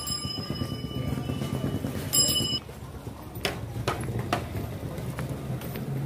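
Bicycle bell ringing: one ring dies away just after the start and a second short ring comes about two seconds in, over a steady low street rumble. Three sharp knocks follow in the middle.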